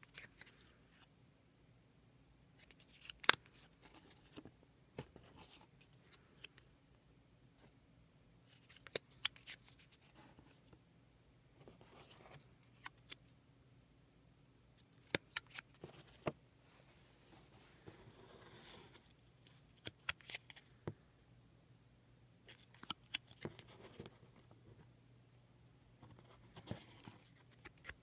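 Paper raffle tickets being handled and separated one by one: short sharp snips and clicks with brief paper rustles every few seconds.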